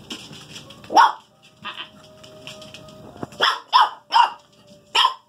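Corgi puppies giving short, high-pitched barks: a loud one about a second in, then a quick run of four near the end.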